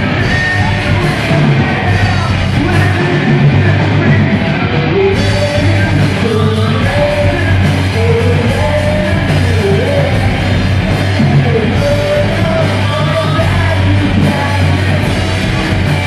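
Live rock band playing loud, with electric guitar and bass under a singer singing into a microphone.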